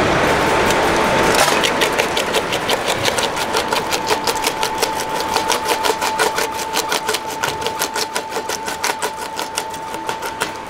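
Working model crusher, driven by its electric motor, crushing lumps of coal dropped into its hopper. A steady whine runs under rapid cracks and clicks, about five a second, that start about a second and a half in and grow fainter toward the end.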